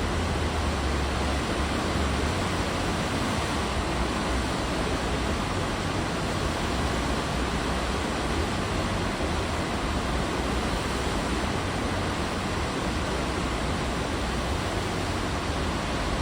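Sea water rushing steadily along a moving cruise ship's hull, an even wash with no breaks, under a heavy low rumble.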